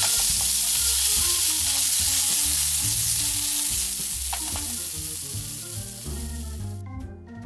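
Wiener sausages sizzling loudly in a frying pan without oil as the last of the water cooks off. The sizzle fades over the last few seconds and stops shortly before the end. Background music with a low bass line plays throughout.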